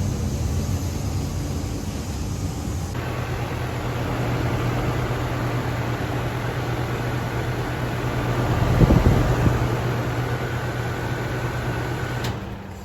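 Central air conditioner outdoor condensing unit running, its scroll compressor humming low under the whoosh of the condenser fan, with a brief louder rumble about nine seconds in. The unit shuts down near the end and the sound drops off sharply.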